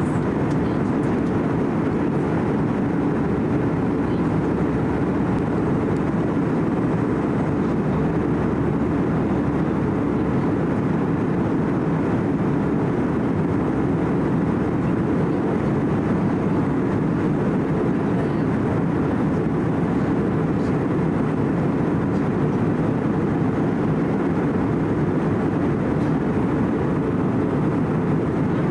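Steady cabin noise inside an Airbus A320-200 in flight: the even, low rush of its engines and the airflow past the fuselage, with no change in level.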